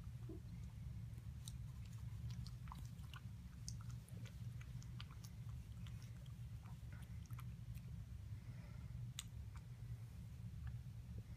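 Cat lapping water from a glass bowl: faint, irregular little clicks of its tongue, over a steady low hum.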